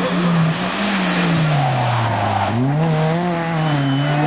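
Rally car engine revving hard through a corner: its note drops as the driver lifts off, then climbs sharply as the car accelerates out, about two and a half seconds in.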